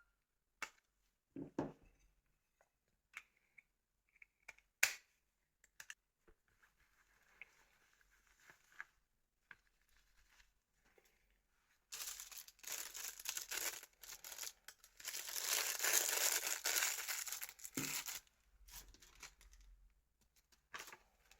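A few scattered light clicks and taps from handling small phone parts. About twelve seconds in, a plastic bag crinkles and rustles for several seconds as it is handled and opened.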